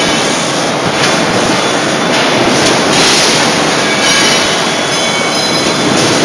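Steady, loud industrial din of forging-shop machinery running, a dense hiss-like roar with faint high whines coming and going; no separate hammer blows stand out.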